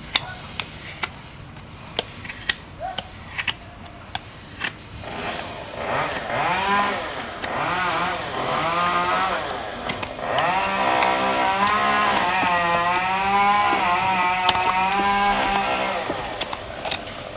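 A run of sharp clicks, then from about five seconds in a motor running with its pitch wavering up and down.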